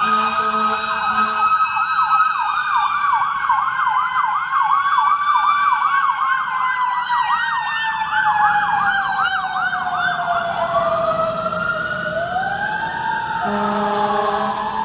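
Fire truck sirens: one wails in a slow rise and fall while another yelps rapidly, about three sweeps a second. The wail winds down and climbs again near the end. A low steady horn tone sounds for the first second or so and again near the end.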